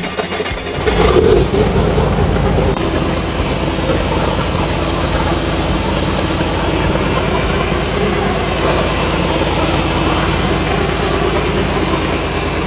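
Rebuilt Komatsu SAA6D170E-5 six-cylinder turbocharged diesel engine being started at its starter motor. It fires up in the first second and a half, then runs at a steady, even beat. This is the first start-up check after the rebuild.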